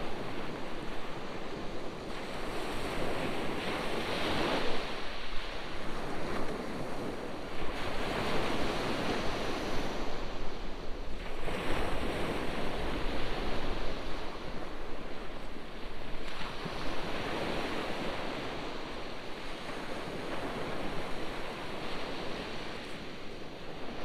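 Surf breaking and washing up a beach, swelling and fading every few seconds, with some wind buffeting the microphone.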